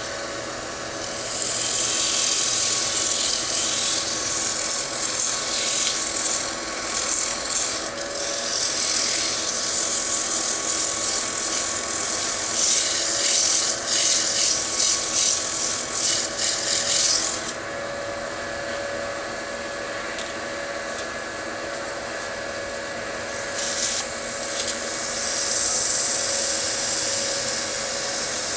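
Wood lathe running steadily with a hum while something is rubbed against the spinning wooden bowl, making a hiss that stops for several seconds after the middle and comes back near the end.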